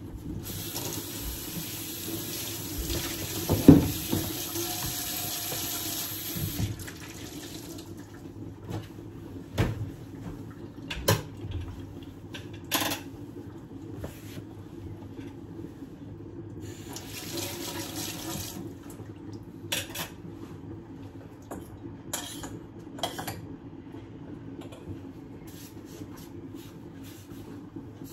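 Kitchen tap running into a sink for about six seconds, then again for about two seconds later on, as the counter is cleaned up. Scattered knocks and clatter of things being handled, over a steady low hum.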